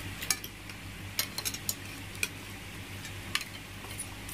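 Spoons and forks clinking and scraping on plates as several people eat: about eight short, sharp clinks, several close together between one and two seconds in, over a steady low hum.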